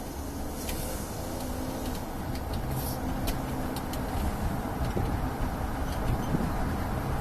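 Car driving: a steady hum of engine and road noise that swells slightly, with a few faint clicks.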